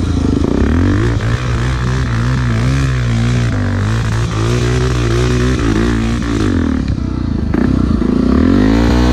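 Single-cylinder four-stroke trail motorcycle engine revving up and down while being ridden, its pitch wavering, dropping about seven seconds in and rising again near the end. The bike is running weak, which the rider puts down to a sticking carburettor throttle slide.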